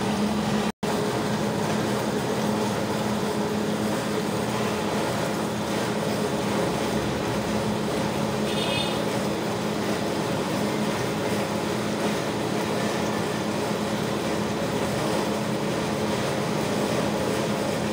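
Steady hum of a running motor under an even rushing noise, holding one pitch throughout. It cuts out for an instant about a second in.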